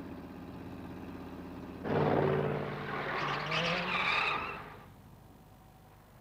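Cartoon sound effects of an old car. Its engine runs steadily, then about two seconds in comes a louder burst of engine and screeching tyres, lasting about three seconds, as it swings round and pulls up. It then dies away.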